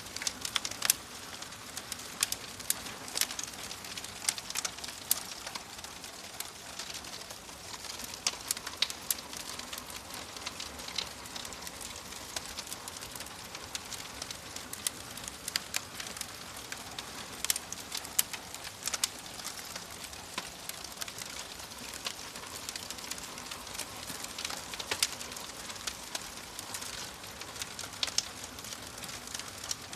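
Fire crackling: a steady soft hiss with frequent, irregular sharp pops and snaps throughout.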